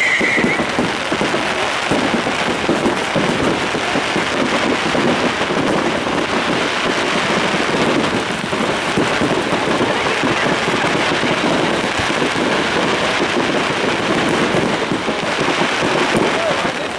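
Fireworks crackling and banging in a dense, continuous barrage with no gaps.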